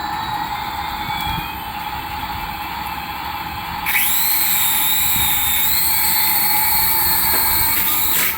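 High-pitched electric whine from a remote-control toy, over a steady tone with slowly gliding pitches; about four seconds in a louder whine sweeps up and holds, then cuts off suddenly at the end.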